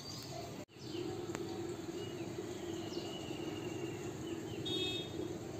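Outdoor ambience: a few birds chirping, with one longer, thin whistled call in the middle, over a steady low hum and background noise. The sound drops out for an instant near the start.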